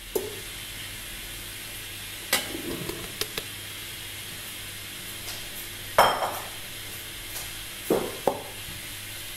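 Stainless steel pot being handled on a stone countertop: scattered knocks and clinks, the loudest a single knock with a short metallic ring about six seconds in, followed by two lighter knocks, over a steady low hum.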